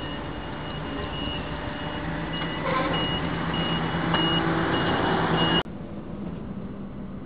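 Remote-controlled DSC-class diesel shunting locomotive passing close by, its diesel engine running and growing louder, with a steady high beeping about twice a second. About three-quarters of the way through the sound cuts off sharply, leaving a quieter steady rumble.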